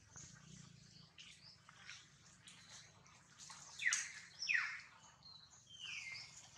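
Birds calling: two short, sharp downward-sliding calls about four seconds in, then a longer falling whistle near the end.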